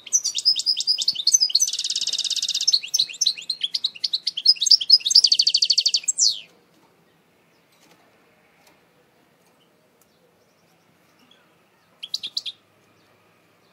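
Eastern Algerian goldfinch singing: a fast run of high twittering notes with two rapid trills, stopping about six and a half seconds in, then one short burst of notes near the end.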